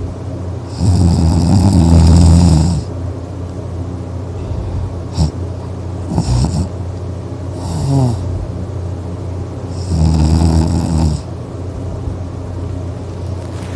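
A person snoring in deep sleep: two long, loud snores, about a second in and about ten seconds in, with shorter, quieter breath sounds between them.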